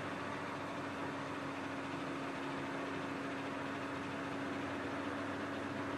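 Steady, even hum over a faint hiss, unchanging throughout: background machine or electrical noise in the room.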